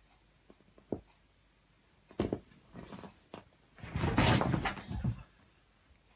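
A startled cat scrambling off a leather armchair: a few soft knocks and creaks of the leather, then a loud burst of scuffling and thumps about four seconds in as it bolts.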